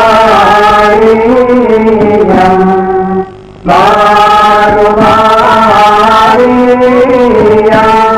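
A single voice singing a slow, chant-like melody in long held notes, with a short pause for breath a little past three seconds in.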